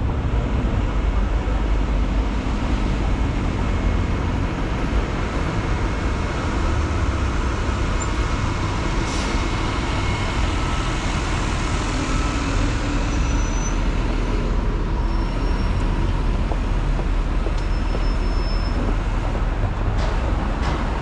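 Steady street traffic: road vehicles passing, with a deep low rumble.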